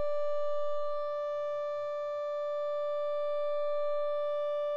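Serum software synth holding one note of a mellow, filtered saw-wave pad with heavy reverb, steady in pitch. Its level dips a little about a second in and slowly swells again as modulation adds motion.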